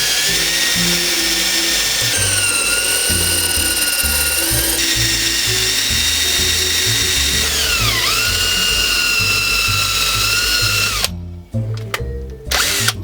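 Electric drill boring out the pressed-in rivet center pin of an aluminium fishing-reel handle: a steady high whine that sags in pitch about eight seconds in as the bit loads up, recovers, then stops about eleven seconds in.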